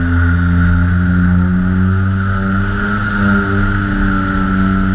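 Twin electric motors and propellers of a TwinStar model plane, heard from its onboard camera, running in a steady drone that wavers slightly in pitch as the throttle shifts.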